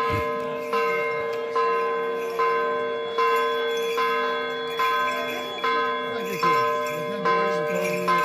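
Church bell rung in a steady rhythm, about one stroke every 0.8 seconds, each stroke ringing on over the next.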